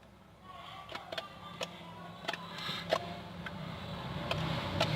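Homemade shaving-cream slime being squeezed and kneaded by hand, giving a scatter of small sharp clicks and pops every half second or so.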